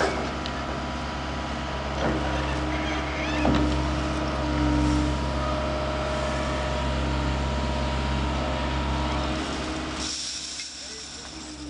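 Diesel engine and hydraulics of a wheeled material handler running steadily under load, with a steady hydraulic whine and a few knocks about two and three and a half seconds in. About ten seconds in, the engine hum falls away and a higher hiss takes over.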